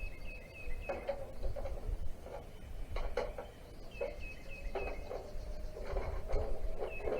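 Metal tools clinking and knocking at irregular intervals as work is done on the engine. A bird calls over it three times, each time with a quick run of four or five short high chirps.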